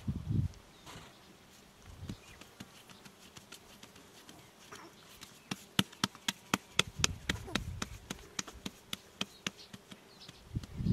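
Hands working sticky bread dough into balls. From about halfway through comes a quick, irregular run of sharp little clicks and smacks, several a second.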